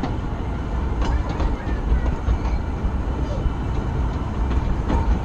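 Narrow-gauge railway carriage rolling on the rails as the train arrives at a station: a steady low rumble with a few sharp clicks and knocks from the wheels and running gear.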